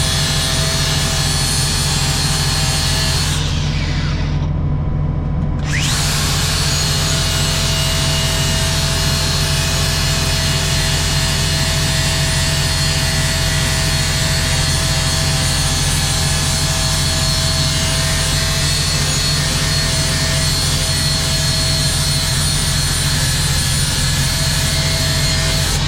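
Angle grinder grinding the steel cutting edge of a rotary brush-cutter blade, a steady loud hiss over the motor's hum. The grinding breaks off for about two seconds around four seconds in, then carries on steadily.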